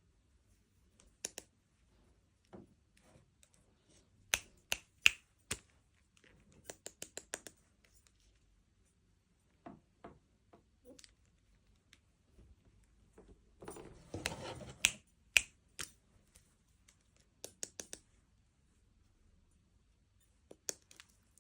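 Handling of small plastic toy pieces and packaging in an unboxing: irregular sharp clicks and taps, some in quick runs, with about a second of crinkly rustling about two-thirds of the way through.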